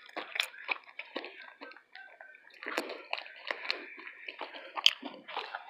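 Close-miked chewing of a taco: irregular wet mouth smacks and small clicks.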